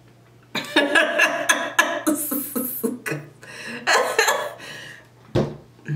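A woman chuckling in short broken bursts, with a brief hiss partway through and a sharp knock near the end.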